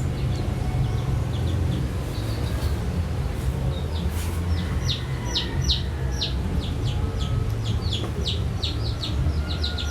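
Bird chirping in a rapid series of short, downward-sweeping chirps, starting about four seconds in, over a steady low rumble.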